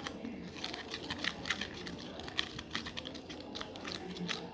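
A small spoon clicking and scraping against a cup in quick, irregular ticks while borax is worked into water.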